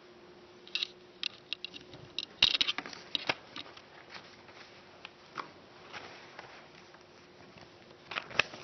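Sheets of paper handouts rustling and being handled as they are passed around, with scattered light clicks and knocks, busiest between about two and a half and three and a half seconds in. A faint steady hum runs underneath.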